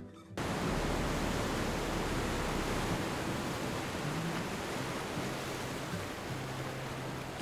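A steady rushing noise that starts abruptly just after the beginning and holds evenly, with faint low held notes beneath it.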